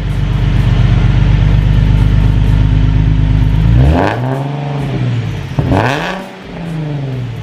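Nissan 370Z's 3.7-litre V6 idling through a freshly fitted aftermarket Y-pipe exhaust, then revved twice, about four and six seconds in, each time rising in pitch and falling back toward idle.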